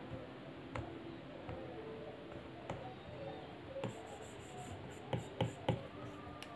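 Stylus tip tapping and stroking on an iPad Pro's glass screen, with scattered sharp taps and a few louder ones together about five seconds in. Faint soft background music plays underneath.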